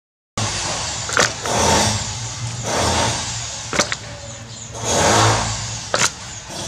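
Dead snakes dropped into a plastic basin, landing with a few sharp wet slaps, over a steady low background noise that swells and fades several times.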